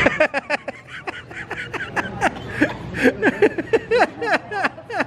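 A person giggling: a quick run of short, high-pitched laughs, each sliding down in pitch, about three or four a second.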